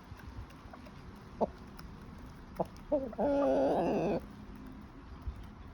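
Chicken pecking at a feed pellet, a few sharp beak taps, then one pitched call about three seconds in that lasts about a second.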